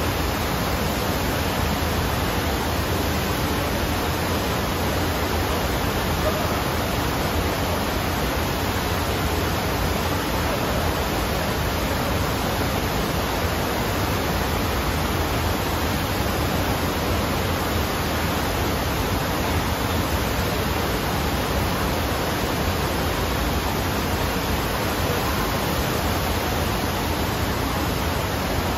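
Steady rush of water pumped over the ramp of an indoor sheet-wave surfing machine, an even, unbroken roar.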